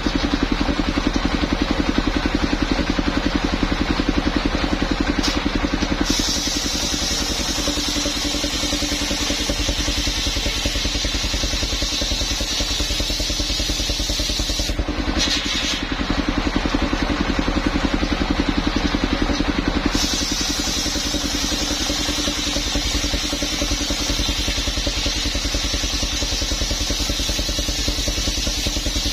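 Engine-driven circular saw machine running steadily with a fast regular engine beat, and from about six seconds in a higher hissing rasp of the blade cutting coconut trunk, breaking off briefly twice.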